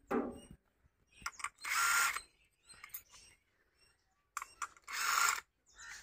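Cordless drill run in two short bursts of about a second each, roughly three seconds apart, its motor whining at a steady pitch.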